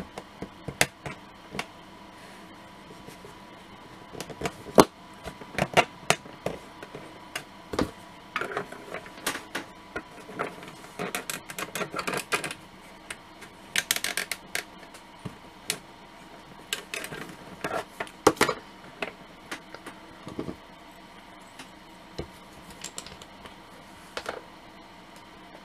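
Hard plastic model-kit parts and small tools being handled and fitted together: scattered clicks and taps with short scrapes, and a longer rustling scrape about 14 seconds in.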